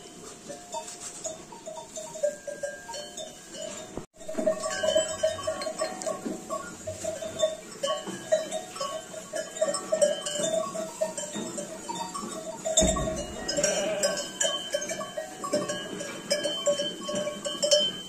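A flock of sheep and lambs at a hay rack, with a steady jangle of small bells and occasional bleats. There is a brief break about four seconds in.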